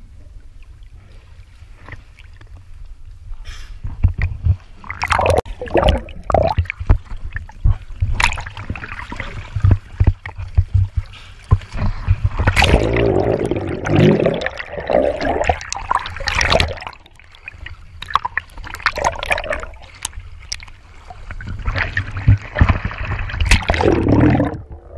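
Swimming splashes, with water sloshing and gurgling close against a camera held at the waterline, in irregular bursts over a low steady rumble.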